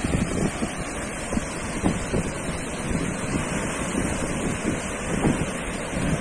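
Sea surf washing steadily onto a sandy beach, with wind buffeting the microphone in irregular low rumbles.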